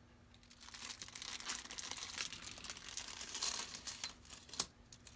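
Small clear plastic accessory bag crinkling as it is handled and opened, then a few light clicks of small metal hex keys and screws dropping onto the tabletop, the sharpest about four and a half seconds in.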